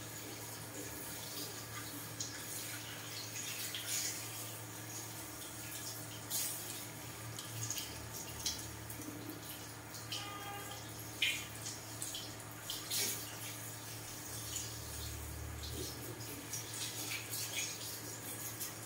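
Water running from a handheld shower sprayer over a head of hair into a shampoo basin, with irregular splashes and drips as the hair is rinsed.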